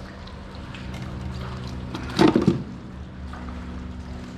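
Water dripping and splashing in a landing net as a just-caught sheepshead is handled and unhooked, with one short, loud splash or flap about two seconds in, over a steady low hum.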